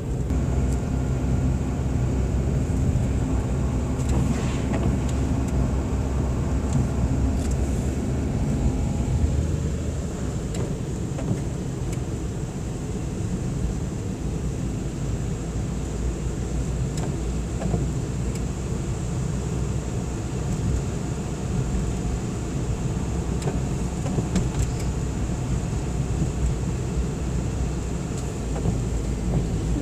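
Car engine and road noise heard from inside the cabin while driving, steady throughout. A pitched engine hum fades about ten seconds in, leaving mostly a low road rumble.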